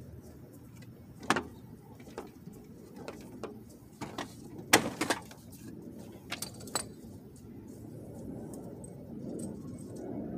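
Sharp plastic and metal clicks and knocks from a car's front bumper cover being pried and pulled loose, the loudest cluster near the middle, over a low steady rumble.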